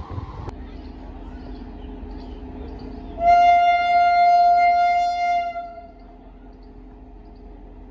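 Indian Railways locomotive horn giving one steady single-tone blast of about two and a half seconds, starting about three seconds in, over a low steady hum. In the first half second a train's wheels clatter, then cut off suddenly.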